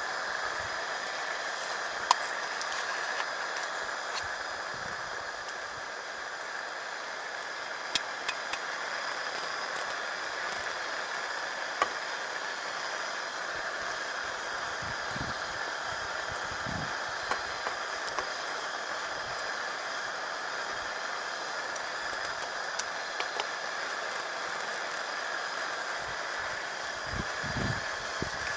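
A wood campfire giving a few sharp crackles now and then over a steady high-pitched background whirr.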